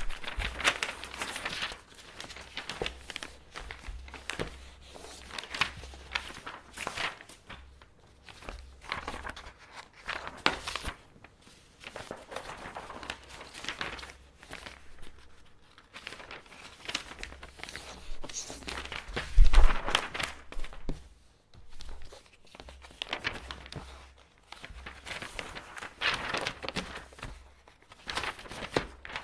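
Sheets of office paper being handled and folded: irregular rustles and crinkles in bursts, with a louder thump about two-thirds of the way through.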